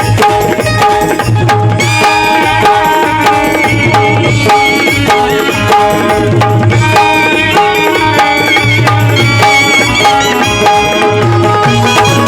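Instrumental interlude of a Marathi Bhimgeet (Ambedkarite devotional folk song): a tabla and drum beat under an ornamented lead melody on an instrument, with no singing.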